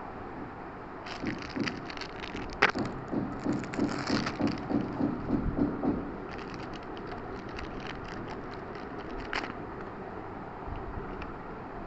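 Hands working on an opened DVR recorder and its hard disk: scattered clicks, one sharp knock, then a few seconds of rapid, evenly repeated scraping or rattling, followed by lighter clicks.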